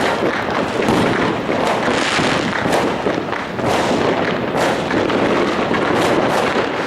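Fireworks and firecrackers going off without a break: a dense crackle with frequent sharper bangs.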